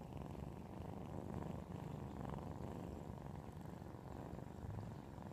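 Cats purring steadily during nursing, a mother cat with her kittens at her belly, very close to the microphone.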